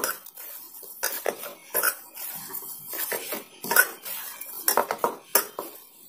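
Hands kneading soft dough in a stainless steel bowl: irregular knocks, scrapes and metallic clinks as the dough is pressed and turned against the bowl.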